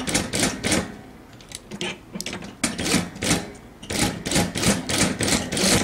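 Unicorn sewing machine stitching in three short runs, starting and stopping with a pause of about a second and a half after the first run.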